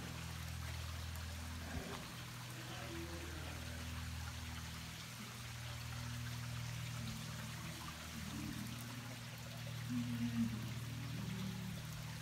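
Shallow creek water trickling steadily through a sandstone ravine, under a low steady hum, with a few brief louder wavering sounds about ten seconds in.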